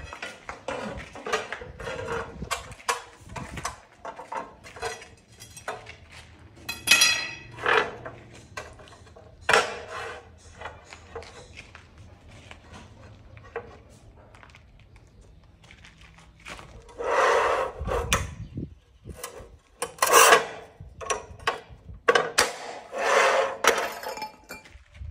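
Manual rail tile cutter working on glazed tiles. The cutting wheel scrapes along the tile surface in several short strokes, mixed with knocks and clacks of tiles and the cutter handle against the wooden base, and a tile snaps along its score line.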